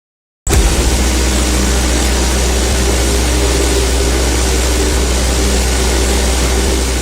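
Synthesized laser beam sound effect: a sustained beam with a deep steady rumble under a broad hiss, starting abruptly about half a second in and holding level.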